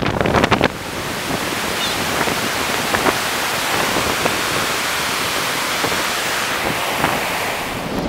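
Sea surf breaking on a sandy beach, a steady rushing wash, with wind buffeting the microphone. A few knocks sound in the first second.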